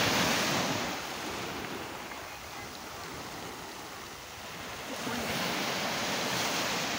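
Small waves breaking and washing up a shingle beach: one surge at the start, a quieter lull, then another wave from about five seconds in.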